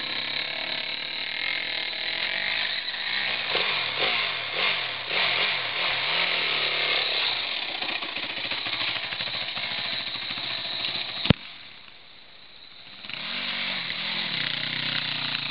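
Dirt bike engine running, its revs rising and falling, over a steady hiss. About eleven seconds in there is a sharp click, then the sound drops away for about two seconds before the engine comes back.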